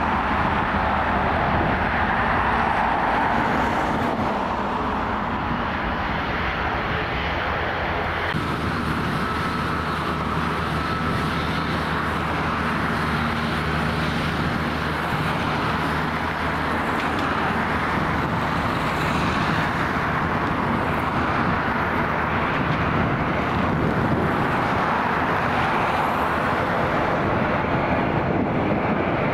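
Airliner jet engines running on the runway with a steady, continuous noise. First comes an Airbus A320neo; then, after a cut about eight seconds in, the CFM LEAP-1B turbofans of a Boeing 737 MAX as it lines up and rolls for takeoff, with a faint whistle for a few seconds after the cut.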